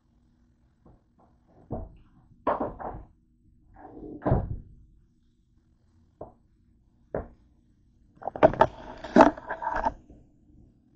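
Clunks and knocks of a metal baking tray of potato wedges being pushed into a countertop air fryer toaster oven and its glass door shut, followed near the end by a denser rattling clatter of handling.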